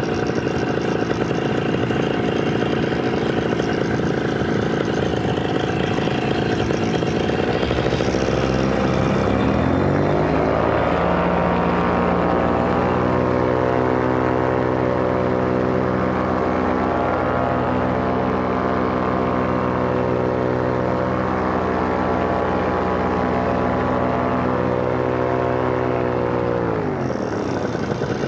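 Moster 185 single-cylinder two-stroke paramotor engine running in flight, with wind rushing over the microphone. The engine note dips about seven seconds in, climbs back over the next few seconds and holds steady, then drops again near the end as the throttle is eased.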